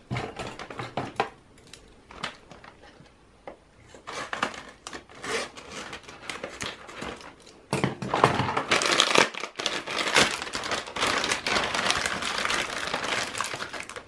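Crinkly candy packaging being handled as lollipops are taken out of the bag. The rustling is sparse for the first few seconds, then turns into dense, continuous crinkling from about eight seconds in.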